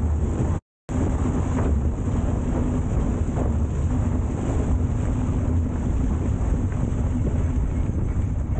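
Rotax 582 two-stroke twin engine and propeller of an ultralight running steadily, with heavy wind buffeting on the microphone.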